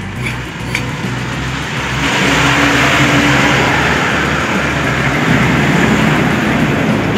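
A motor vehicle's engine running close by, with a low rumble that grows louder about two seconds in and then stays loud.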